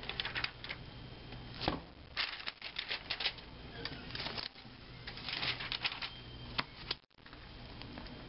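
Paper and a book being handled: irregular rustling and crinkling with light clicks and taps, coming in short bursts.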